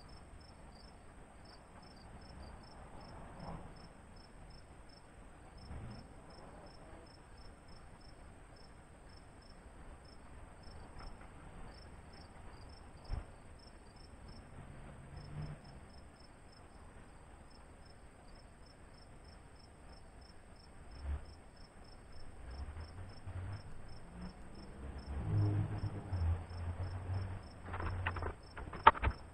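An insect chirping in rapid, steady high-pitched pulses over a faint background hush. In the last few seconds low rumbles and a few sharp knocks come in, the loudest of them near the end.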